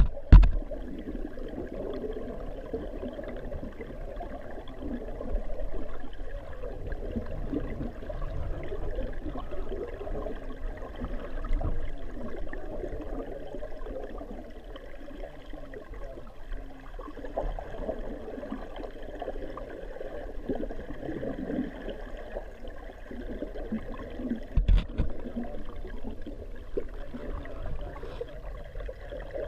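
Water pouring into a fish-ladder pool, heard underwater through a GoPro housing as a steady, muffled churning. Two sharp knocks stand out, one right at the start and one about five seconds before the end.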